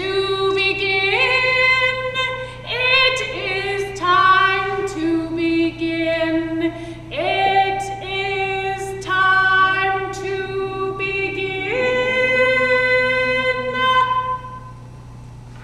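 A woman singing unaccompanied, holding long notes and sliding from one pitch to the next. The song stops about 14 seconds in.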